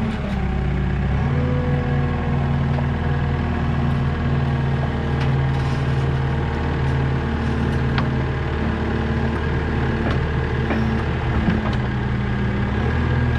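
A vehicle engine idling steadily, its pitch shifting slightly about a second in and again near the end, with a few light clicks over it.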